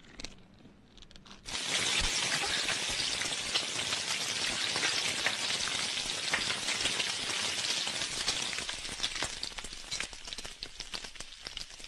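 An egg sizzling as it fries into an omelette: a steady crackling hiss that starts about a second and a half in.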